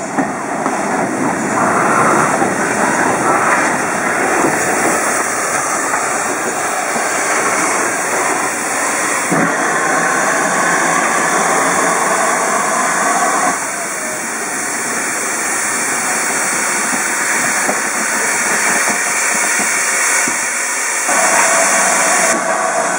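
Steam locomotive hissing steadily as it vents steam beside the platform, a continuous loud rush of noise. The hiss eases somewhat about two-thirds of the way through and swells again near the end.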